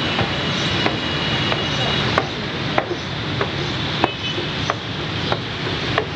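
Escalator running under a rider: a steady mechanical hum with a sharp click about every 0.6 s as the steps pass.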